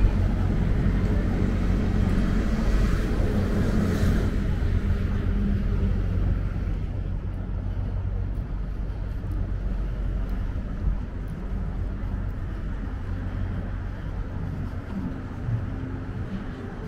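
Downtown city traffic: a steady low rumble of cars with a haze of road noise, easing off gradually over the span.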